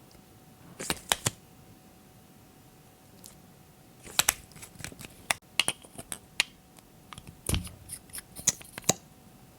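Sharp clicks and snips from hands working with slime-making materials, in irregular clusters: a few about a second in, then many from about four seconds in to near the end.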